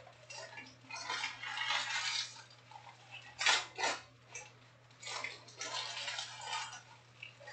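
Foil trading-card packs and stacks of cards being handled on a tabletop: stretches of crinkling and rustling, with two sharp clicks about three and a half seconds in.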